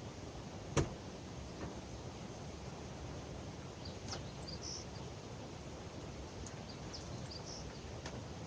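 Steady outdoor background noise with one sharp click about a second in, a couple of softer clicks, and a few faint, short, high chirps.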